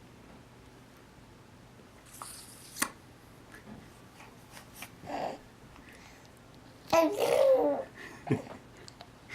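A 4-month-old baby's spitty raspberry noises and babbling: a short spluttering burst ending in a click about two seconds in, then brief coos, the loudest a pitched, wavering coo about seven seconds in.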